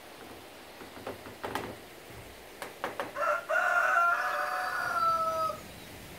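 Rooster crowing once, a long held call of about two and a half seconds that falls slightly at the end, after a few short clicks.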